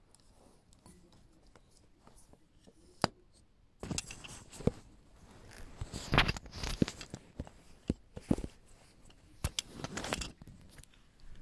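Handling noise from a Canon AV-1 35mm SLR and its lens: scattered clicks and scraping, rustling noises, with one sharp click about three seconds in, then a busier, louder stretch of clicks and scrapes from about four seconds until near the end.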